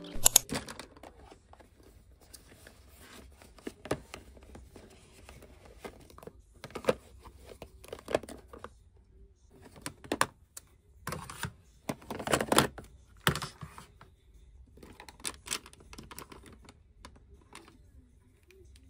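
Plastic makeup cases, compacts and boxes being picked up and moved around in a plastic drawer organiser, giving scattered clicks, knocks and rattles with short quiet gaps, busiest a little after the middle.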